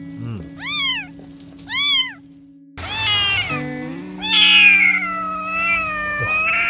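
Kittens meowing: two short, arching meows in the first two seconds, then after a brief pause another kitten's meows, ending in a long, wavering meow over the last few seconds.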